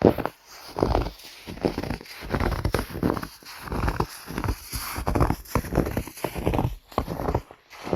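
Footsteps crunching through snow at a steady walking pace, about one and a half steps a second.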